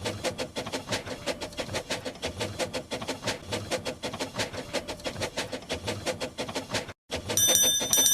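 Dubbed steam train sound effect: a fast, even rhythmic clatter of a locomotive running. It cuts out briefly about seven seconds in and comes back under a ringing bell.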